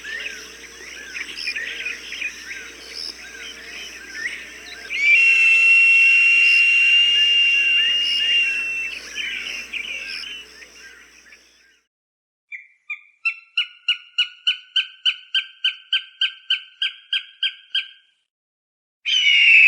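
Recorded hawk calls: a long, slightly falling scream about five seconds in, over many small birds chirping. After a brief pause comes a rapid series of about twenty sharp, repeated calls, about four a second, and another loud scream starts right at the end.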